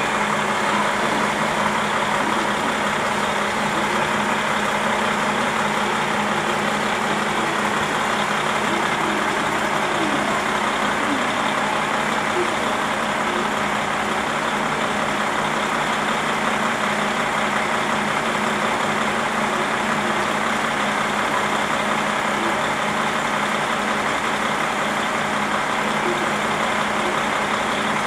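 KiHa 40 diesel railcar's underfloor engine idling steadily while the car stands still.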